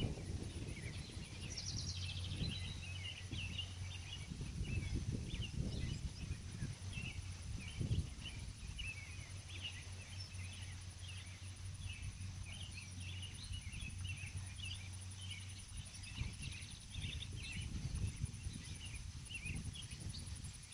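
Outdoor ambience: many small birds chirping in quick short calls, over a steady high insect buzz, with wind rumbling on the microphone.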